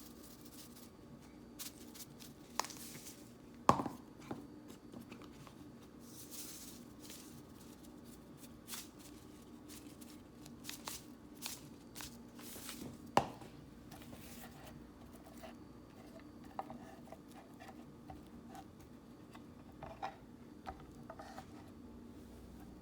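Kitchen prep handling sounds: scattered knocks, clicks and rustles of cauliflower and utensils being handled, with two sharper knocks about 4 and 13 seconds in. A faint steady hum runs underneath.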